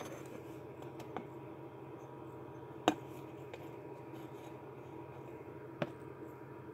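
A few light clicks and taps from a ceramic tile being handled and set on a plastic tub lid: a sharp tap about three seconds in, a softer one near six, over a faint steady room hum.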